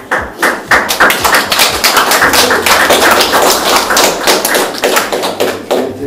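Audience applauding, with loud, sharp hand claps close by that start suddenly.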